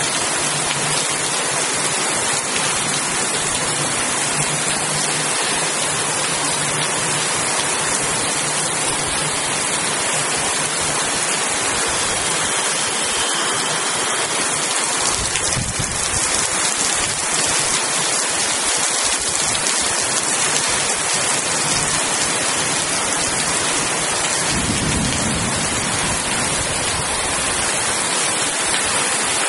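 Heavy tropical rain pouring down on forest trees and soaked ground: a steady, loud hiss, with low rumbles about halfway through and again near the end.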